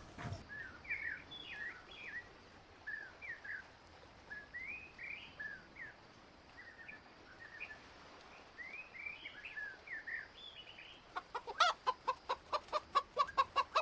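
Faint, scattered bird chirps. About two seconds before the end, a mother hen with chicks starts clucking in a quick, even series, about four clucks a second.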